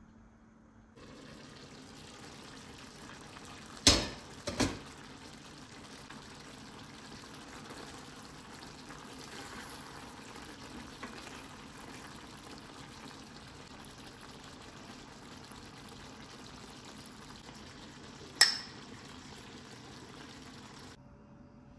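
Zucchini, carrots and onion simmering in olive oil and water in a stainless-steel pot, a steady bubbling. Two sharp clinks about four seconds in, likely the pot's glass lid being lifted off, and one more clink near the end.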